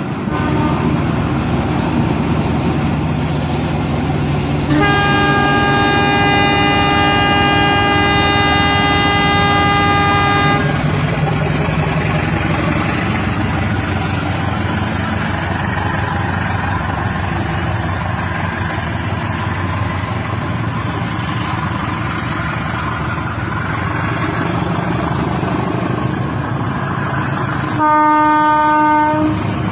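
Rail King battery-powered toy train running on its track with a steady motor and wheel noise. It sounds its horn, held for about six seconds starting about five seconds in, and gives a shorter horn blast near the end.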